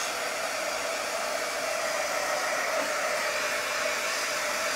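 Handheld hot-air dryer blowing steadily to dry wet paint on a craft piece, an even rushing hiss with a constant hum.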